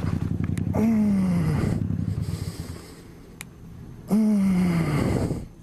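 A man's voice letting out a long, falling groan-like exclamation twice, a few seconds apart, over car and road noise.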